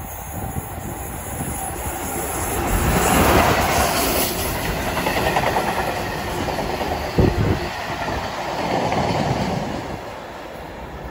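Short steel freight train passing through at speed: the locomotive goes by loudest about three to four seconds in, then the steel-carrying wagons rattle and clatter over the rails, with one sharp clank about seven seconds in.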